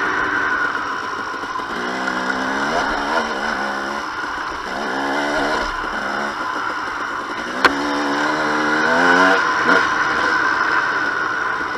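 A 2007 KTM 250 XC-W's single-cylinder two-stroke engine under way, its pitch rising and falling in three surges as the throttle is worked. A sharp knock comes about three-quarters of the way through.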